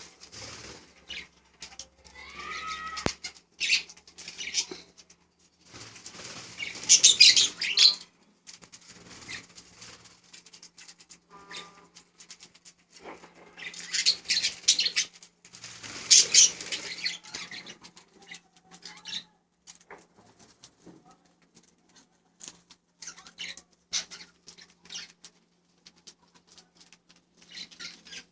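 Pet budgerigars chirping and chattering in bursts, mixed with wing flutters, loudest about a quarter of the way in and again a little past halfway.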